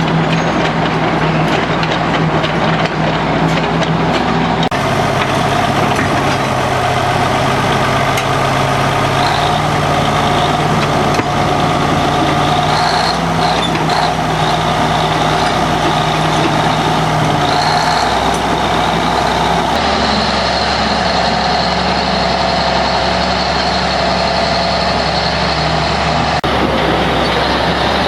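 Heavy diesel engine running steadily, its pitch shifting in steps a few times.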